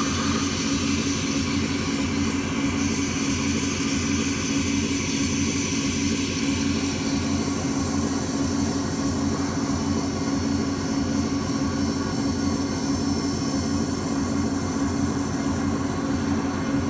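Experimental electronic noise drone fed from the sound of glass rattling inside a boiling pan: a steady, dense rumble over a strong low hum, with a hiss on top that thins out about halfway through.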